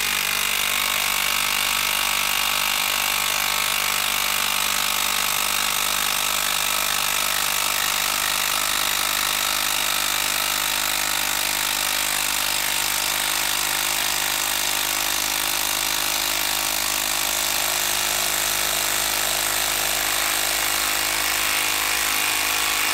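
Makita 12-volt brushed cordless impact driver hammering without a break as it drives a 10-inch TimberLOK screw down into a log under heavy load.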